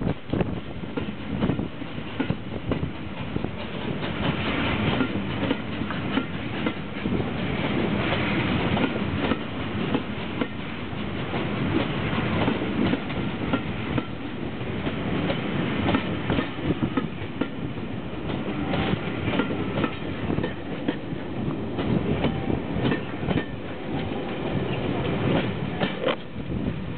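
A long passenger train rolling slowly into a station platform, its wheels clicking over the rail joints with a continuous rumble.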